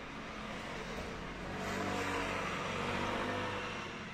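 A vehicle passing close by, its sound swelling to a peak about halfway through and then fading away.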